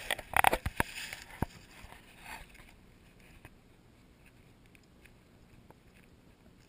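Crunching and scraping in dry leaves and mud, with several sharp clicks. It is loudest in the first second or so and fades to a faint rustle after about two and a half seconds.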